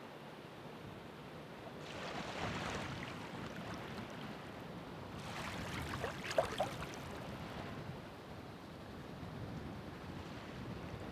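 Ocean waves washing onto the shore, two surges of breaking surf about two and five seconds in, the second louder, over a steady background hiss of the sea.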